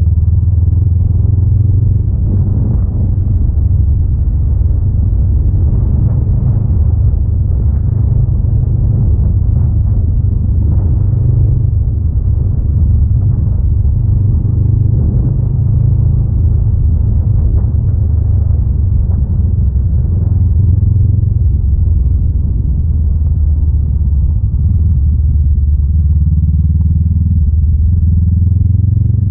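Honda Rebel 500's parallel-twin engine running at a steady, even cruise while the motorcycle rides along a dirt road.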